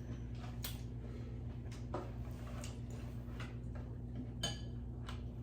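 Eating sounds: scattered soft clicks of a spoon and bowl, with one ringing clink of a utensil against a dish about four and a half seconds in, over a steady low hum.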